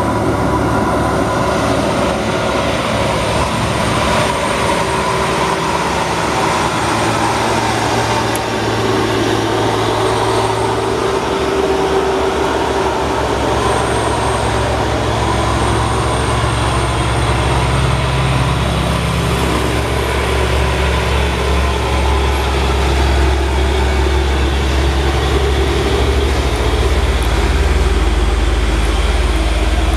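Heavy Hino diesel trucks pulling loaded up a steep grade one after another, a dump truck, then a container truck and a tank truck, their engines running hard under load. The low engine sound grows louder near the end as the tank truck passes close by.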